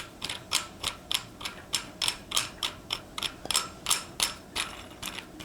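Steady ratcheting clicks, about three a second, as a bidet seat's mounting screw is tightened down to lock its bracket onto the toilet bowl.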